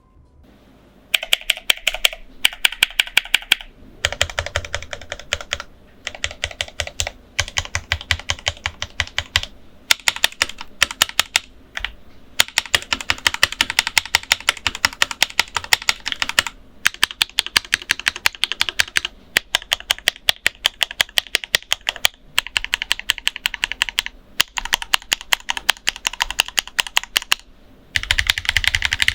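Typing test on a Pulsar PCMK TKL mechanical keyboard with stock Juice Black Ultimate 63.5 g switches, stock pre-lubed stabilizers and Pulsar low-profile PBT keycaps. Rapid keystrokes come in runs of a few seconds, broken by short pauses. The sound profile has no hollowness or pinging.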